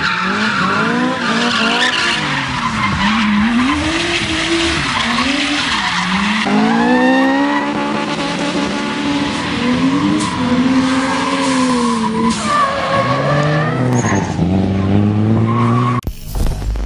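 High-revving race car engine, its pitch swinging up and down every second or so as it is revved and let off, with tyres squealing and skidding through the drift. The sound cuts abruptly to a different noise near the end.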